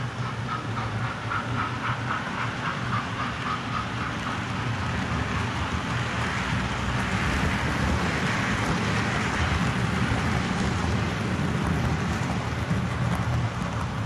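Model railway trains running on the layout: a steady motor hum with wheels ticking rhythmically over the rail joints. The running noise swells as a train passes close by about halfway through.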